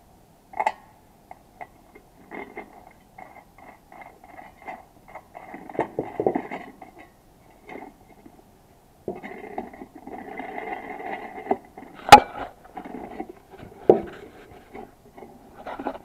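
Gloved hands handling a sheet-metal blower impeller and the nut on its shaft, making irregular scraping and clinking of metal, with a sharp click just after twelve seconds in.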